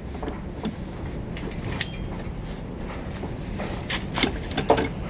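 Scattered metal clicks, knocks and a brief ring of tools on a bicycle wheel hub as a stuck cone nut is worked loose, the knocks coming a little more often near the end.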